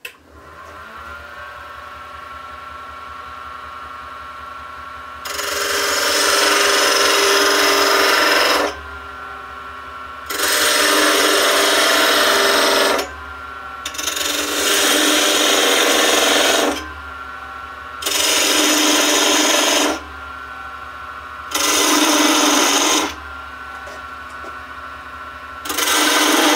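Wood lathe starting up and running steadily at about 1400 RPM, while a parting tool cuts into the spinning wooden spindle six times, each cut a loud scraping lasting two to three seconds with short pauses of plain motor hum between.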